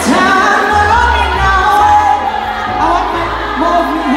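Live band music with a woman singing lead, backed by bass guitar, keyboards and drums.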